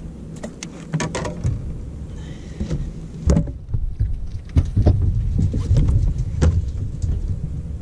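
Steady low wind and water rumble on a drifting boat, with scattered sharp clicks and knocks from gear being handled on the deck.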